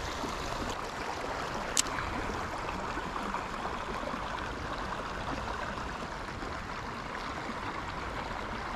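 Creek water running steadily over a shallow riffle, with a single sharp click about two seconds in.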